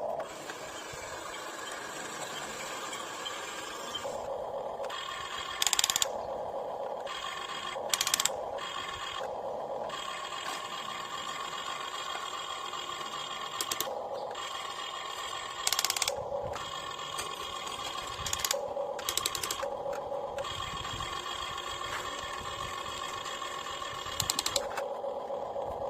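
Radio-controlled excavator's electric motor and hydraulic pump whining steadily as it is worked, the sound changing as functions switch on and off, with several brief louder clatters.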